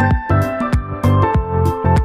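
Background music with a steady beat: held synth-like notes over a deep, regularly repeating kick drum and crisp hi-hat ticks.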